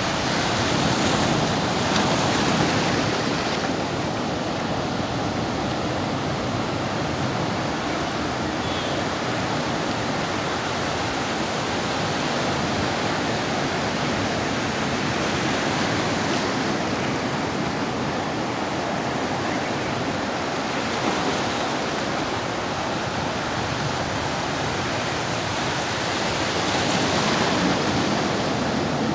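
Sea surf breaking and washing up over sand and rocks: a steady rush of water that swells louder a few times as bigger waves come in.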